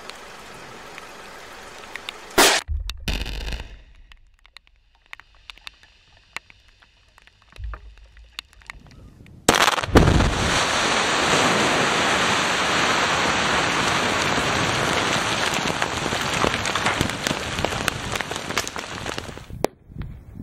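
Rock blasting in open-pit mines. About two and a half seconds in there is one sharp blast with a short low rumble after it. Near the middle a second, close-range blast sets off about ten seconds of dense, steady crackling noise as rock and dirt are thrown up, which stops abruptly.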